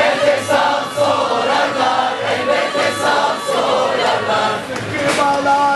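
Tulum, the Black Sea bagpipe, playing a dance tune with a twisting melody, with a crowd singing along.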